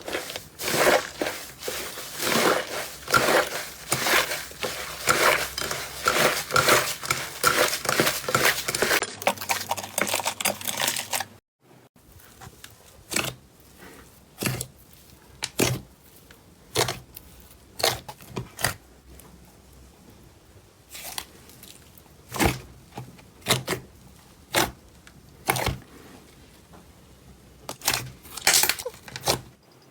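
Slime being squeezed and worked by hand, with dense crackling and popping. Just before the midpoint it cuts off abruptly. After that come single sharp pops, about one every second or so.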